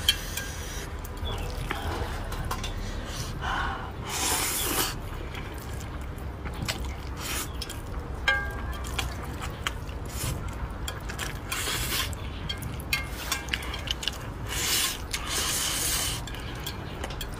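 Wet slurping of spicy instant noodles sucked up off a plate with chopsticks, in a few noisy slurps about a second long each, with small wet smacks and clicks between them.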